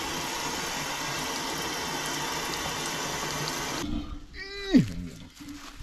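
Kitchen faucet spray running steadily into a stainless steel sink over raw meat, cutting off suddenly about four seconds in. Shortly after, a brief squeal falls in pitch.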